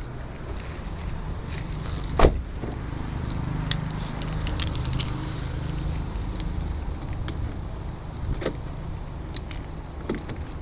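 Mk1 Audi TT 180's straight-piped 1.8-litre turbo four-cylinder engine running at a steady low idle. Scattered light clicks and one sharp knock about two seconds in sit on top of it.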